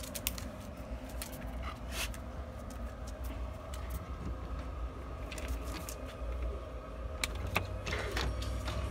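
A door's brass lever handle being worked and the door opened: the latch and handle give scattered clicks and rattles, in clusters past the middle and near the end, over a low steady rumble.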